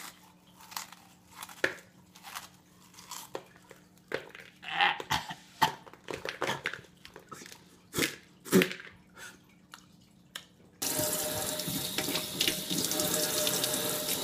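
Scattered short crunching and throat sounds from eating spicy chips, then about eleven seconds in, a faucet suddenly comes on and water runs steadily into a sink.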